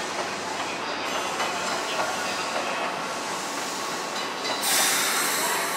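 Electric trains running on the station tracks: a steady rumble with scattered clicks of wheels over rail joints. About four and a half seconds in, a louder hiss rises and runs to the end.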